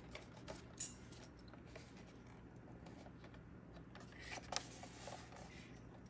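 Faint scattered clicks and taps of small objects being handled on a hard surface, with a brief rustle and a sharper click about four and a half seconds in, over a low steady hum.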